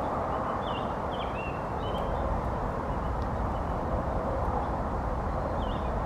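A songbird sings a short phrase of high, quickly sweeping notes about a second in, and starts the same phrase again near the end. Under it runs a steady background rumble.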